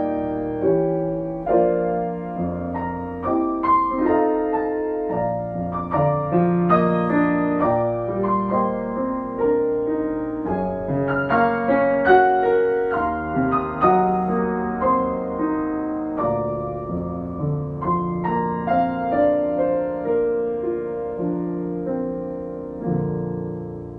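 Solo piano music, notes struck one after another and left to ring, fading down near the end.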